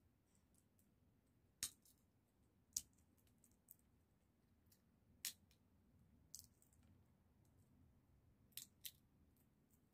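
Sunflower seeds being shelled by hand over a glass tabletop: a scattering of small sharp clicks and cracks from the shells, about half a dozen at uneven intervals, two close together near the end, with near silence between.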